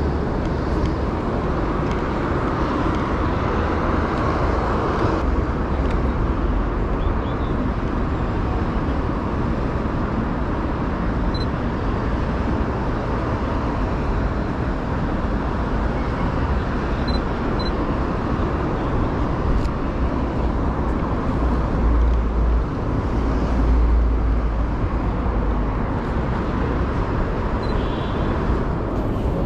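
Steady outdoor street noise with a low rumble that swells for a couple of seconds about three quarters of the way through.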